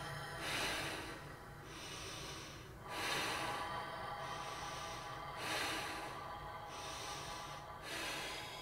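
A person breathing heavily and slowly: four loud, hissy breaths about two and a half seconds apart, over a faint steady drone.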